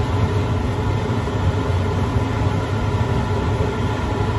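Steady low rumble and hum of running machinery, unchanging in level.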